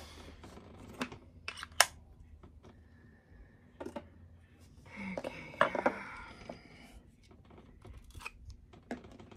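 Handling sounds of small clear plastic spider enclosures and metal tweezers on a tabletop: irregular sharp clicks and taps, the loudest a little under two seconds in, with a stretch of rustling about halfway through.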